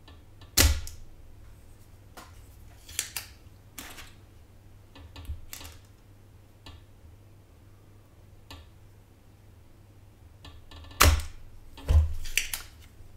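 Spring-loaded desoldering pump (solder sucker) snapping as its plunger fires to pull molten solder out of a capacitor's through-holes on a motherboard. One sharp snap about half a second in and two more near the end, with lighter clicks and taps between.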